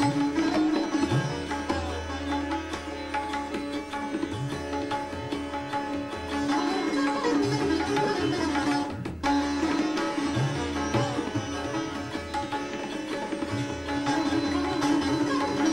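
Sitar played in dense runs of plucked notes over its ringing drone strings, accompanied by tabla bass strokes, one of them held as a deep boom about two seconds in. The music breaks off for a moment about nine seconds in.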